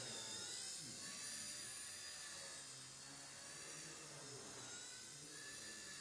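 XK K100 micro RC helicopter in flight: a high-pitched motor and rotor whine that wavers up and down in pitch as the throttle changes.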